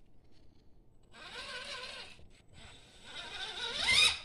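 Redcat Everest 10 RC crawler's stock brushed 540 motor and gear train whining as it is driven: a short burst about a second in, then a whine that rises in pitch and grows louder from about three seconds in, as the crawler climbs a wall under load.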